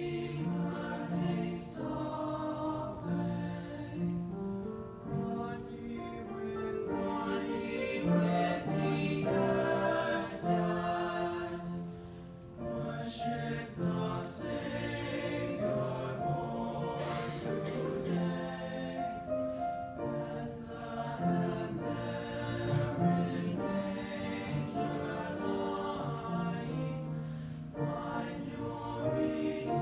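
Boys' choir singing in parts: held chords that move from note to note, softening briefly near the middle.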